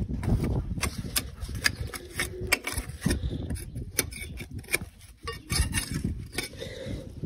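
Irregular clicks and knocks over a low, uneven rumble: caked soil being scraped and knocked off a tractor.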